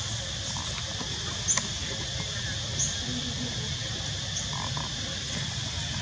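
Steady chorus of insects, with a few short, high squeaks about a second and a half in, near three seconds, and again past four seconds.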